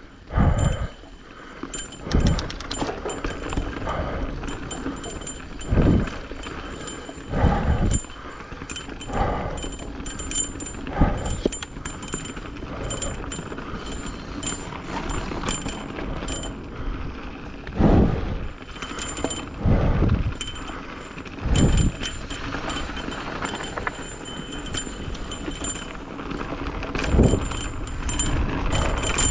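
Mountain bike riding a rough trail: a steady rattle of tyres and components, with a heavy thump every few seconds as the bike hits bumps.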